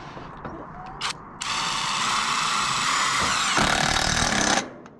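Cordless impact driver driving a farmer screw (a roofing screw with a rubber washer) through sheet-metal flashing into a timber batten: a short blip about a second in, then about three seconds of continuous running that changes tone about three and a half seconds in as the screw bites, stopping abruptly.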